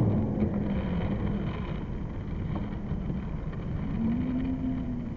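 Skateboard wheels rolling over tiled pavement: a steady low rumble with a few faint clicks, slowly fading.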